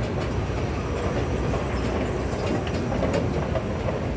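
Escalator running under a rider: a steady mechanical rumble with a few faint clicks.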